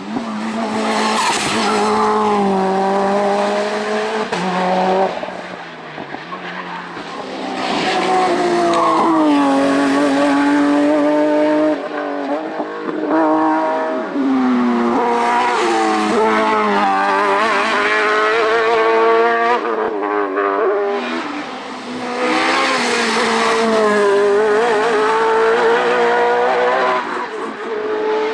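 Racing car engines at high revs, the pitch climbing through each gear and dropping back at every upshift. The loudness swells and falls as successive cars accelerate past.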